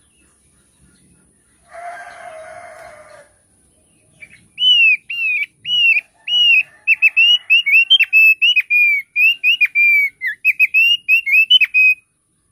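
Thick-billed heleia (opior paruh tebal) singing: a long series of short, clear whistled notes, each sweeping down in pitch, coming two to three a second and then faster toward the end. A brief harsh, rasping sound comes about two seconds in, before the song starts.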